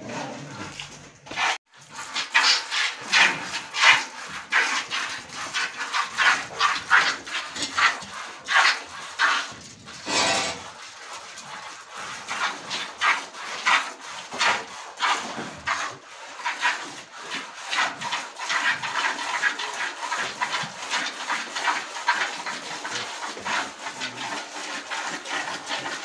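A cow being milked by hand: jets of milk squirt into a plastic bucket in a steady rhythm, about two to three squirts a second, running into a quicker, more continuous hiss in the second half.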